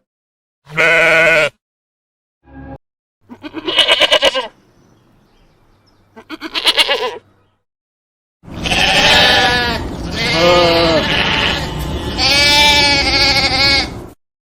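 Domestic sheep bleating: a series of separate baas with dead silence between them, some short and some quavering, then three long wavering bleats in close succession near the end.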